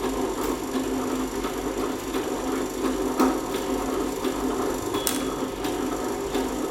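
Electronic component lead-cutting machine running with a steady motor hum and repeated irregular clicks, one louder snap about three seconds in.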